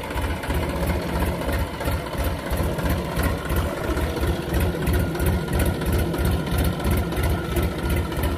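Massey Ferguson 5245 DI tractor's diesel engine running steadily, with an even low throbbing beat.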